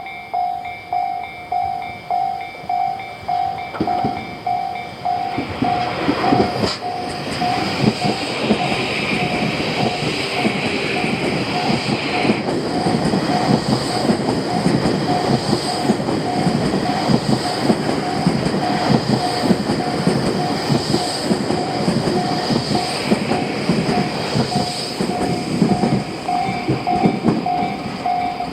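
Japanese level-crossing warning bell ringing steadily at about two strokes a second. About five seconds in, a Tobu Railway train starts running past over the crossing, its wheels clattering over the rail joints, with the bell still ringing under it.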